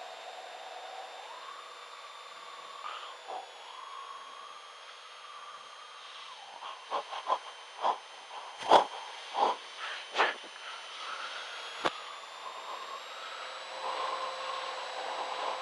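Steady hiss of Cessna Skylane cockpit noise heard through the headset intercom. From about six seconds in comes a run of quick, sharp breaths into the pilot's microphone: hard, anxious breathing as he struggles with an engine failure just after takeoff.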